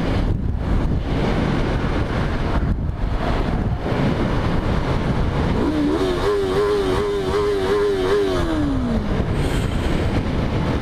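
Heavy wind noise on the microphone at highway speed. About halfway through, a Yamaha YZF-R3's parallel-twin engine rises in revs, holds high with a slight waver for a couple of seconds, then falls away as the throttle closes.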